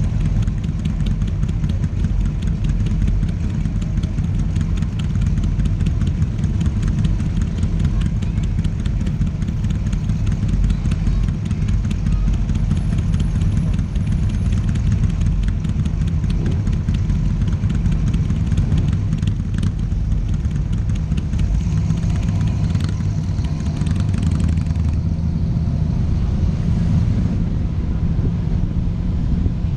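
Car engine running at a steady low rumble under the bonnet-mounted microphone, idling in slow traffic, with the car moving off near the end.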